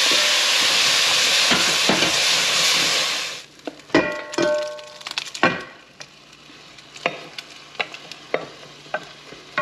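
Pork browning in a hot pan, sizzling loudly, which stops abruptly a little over three seconds in. Then a few ringing metal clinks and scattered light taps of utensils against the pan and dishes.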